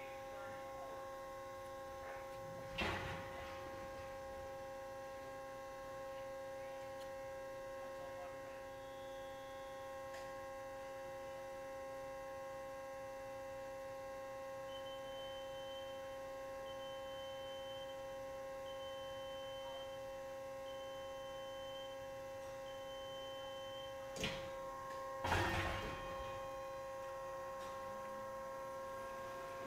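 Steady machine hum made of several level tones, from the automatic wheel-set ultrasonic testing system running. A few knocks come about three seconds in and again near the end, and a run of short high beeps sounds in the middle.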